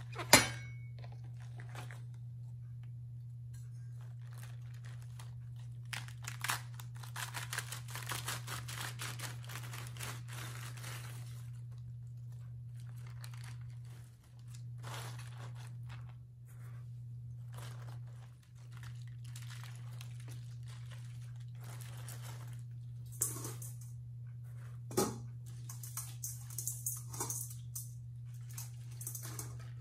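Halved napa cabbages being cut and handled: a sharp knock of the knife on the cutting board just after the start, then long stretches of crisp rustling and crunching of the leaves, with a couple more knocks later on. A steady low hum runs underneath.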